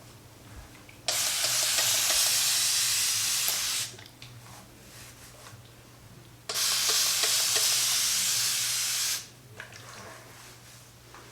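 Spray bottle misting warm water onto hair in two long, steady sprays of about three seconds each, the first about a second in and the second about six and a half seconds in.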